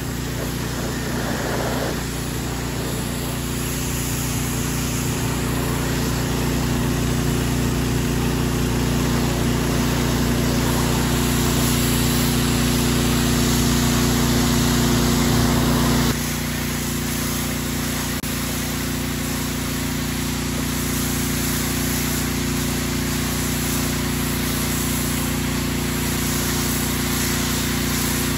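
Engine-driven pressure washer running steadily, with the hiss of its high-pressure water jet spraying the underside of a canopy. The sound drops slightly in level about halfway through.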